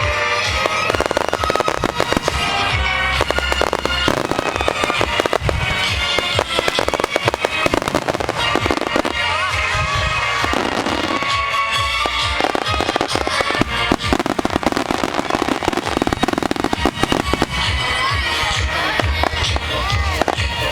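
Aerial fireworks bursting and crackling in rapid, dense succession, with music playing underneath.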